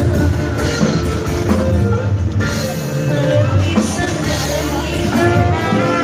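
Rock music with drum kit and guitar playing steadily.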